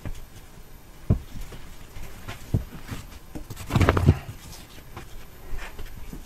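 Exhaust heat wrap being wound by hand around a 3-inch exhaust pipe: a few dull knocks as the roll bumps the pipe, about a second and two and a half seconds in, then a louder flurry of rustling and knocking around four seconds in as the wrap is pulled tight around the pipe.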